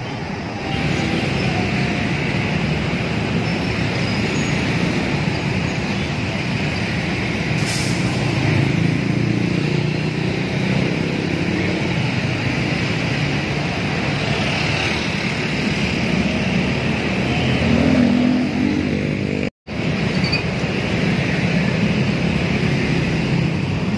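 Steady roar of busy road traffic with the diesel engines of large coaches running, motorbikes and cars passing close by. The sound drops out completely for an instant near the end.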